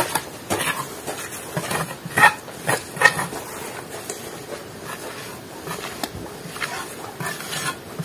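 Steel trowel scraping and tapping wet mortar on brick, a run of irregular scrapes and knocks, sharpest about two to three seconds in.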